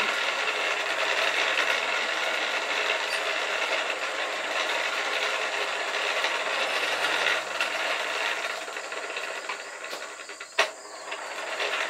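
Hand-cranked forge blower running, its gears whirring with a steady rattle as it blows air into the coal fire. It slows and dies away near the end, with one sharp clack about ten and a half seconds in.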